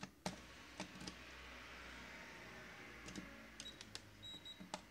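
Light clicks and taps of test probes and contactor parts being handled, with a few short high beeps from the Minipa ET-3200 clamp meter's continuity buzzer near the end as the probes touch a contact that conducts.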